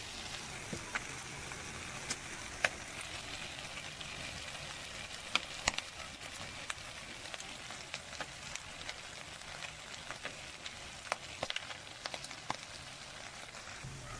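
Diced pork face frying in oil in a wok: a steady sizzle with scattered pops and crackles.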